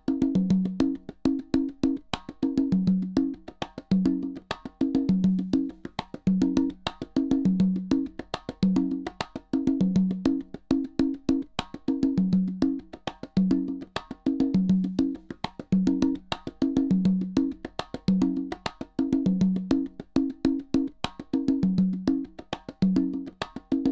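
Rhythmic wood-block-like percussion test track: fast, even ticking over a repeating pattern of alternating low and higher knocked notes, played at equal level from the left and right speakers for a left/right balance and centre-imaging check.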